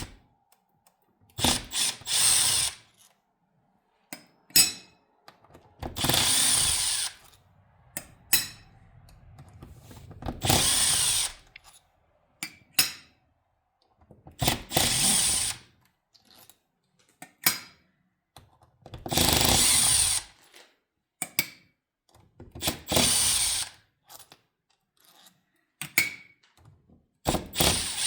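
A handheld power driver spinning out the small bolts of a 68RFE transmission valve body's solenoid block: about seven short runs of a second or so each, with light clicks of tool and parts handling in between.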